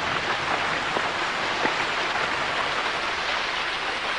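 Rain falling steadily on open water, a dense even hiss with scattered single drop impacts.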